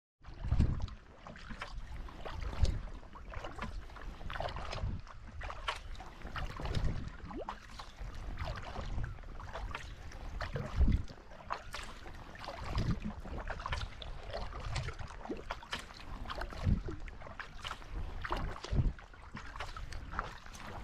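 Sea kayak being paddled across calm sea: water splashing off the paddle blades and lapping along the hull, with a low thump every couple of seconds.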